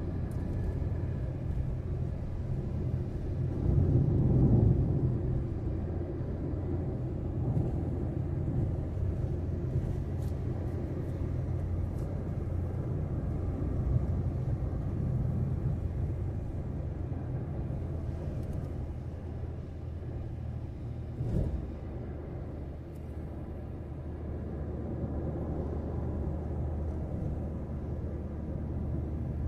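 Road noise of a car driving: a steady low rumble, swelling briefly about four seconds in, with a short louder sound just past twenty seconds.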